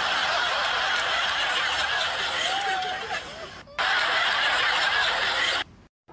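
Breathy laughter, with a short break a little past the middle, cutting off suddenly near the end.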